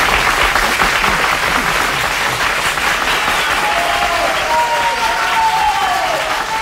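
Live audience applauding at the end of a song. Calls from the crowd rise over the clapping about halfway through.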